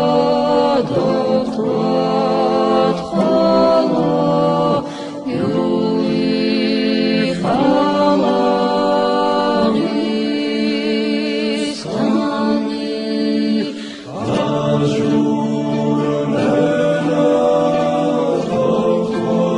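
Unaccompanied choir singing in several parts, holding long chords with brief breaks between phrases.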